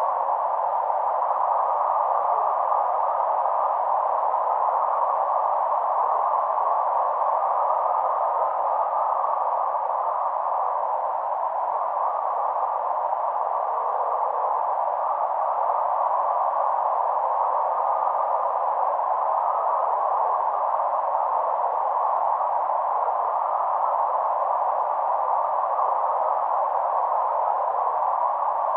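Sound of the aurora borealis made from its flickering light: a photomultiplier-tube receiver converts the light modulation into audio, heard as a steady, even hiss that sits mostly in a narrow middle band, without breaks.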